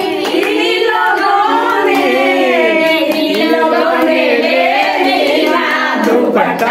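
A group of women singing a song together, with scattered hand claps keeping time.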